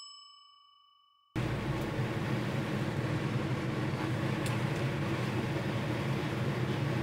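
The ringing tail of a bell-like ding dies away. After a moment of silence a steady mechanical hum with an even rushing noise sets in, the room sound inside a travel trailer, with a couple of faint clicks over it.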